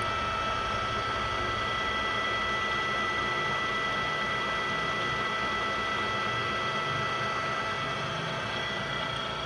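Ooya RE2-1300A radial drill press running, its spindle drive and gearing giving a steady whine of several high tones over a low mechanical hum.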